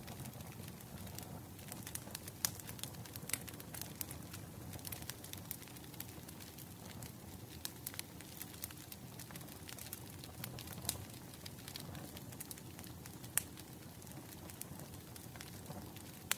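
Wood fire burning with a steady low rumble and irregular sharp crackles and pops, a few of them louder.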